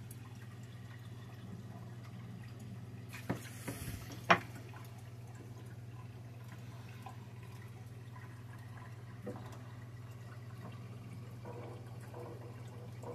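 Aquarium equipment humming steadily under faint trickling and bubbling water. A few sharp knocks come about three to four seconds in, the loudest just after four seconds.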